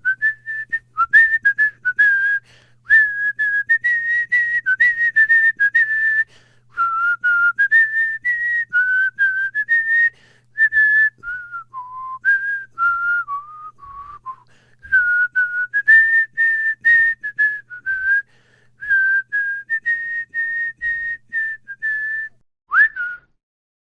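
A man whistling a tune with his lips: clear single notes stepping up and down in phrases, broken by short pauses for breath. A faint low hum runs underneath until near the end.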